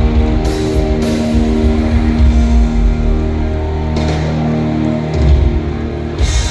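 Live hard rock band playing loud: distorted electric guitars holding sustained chords over bass and drums, with several cymbal crashes from the drum kit.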